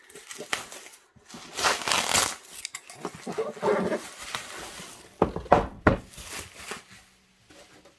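Plastic bubble wrap rustling and crinkling as it is pulled away from a boxed model-train coach set, with a few sharp knocks about five to six seconds in as the box is handled.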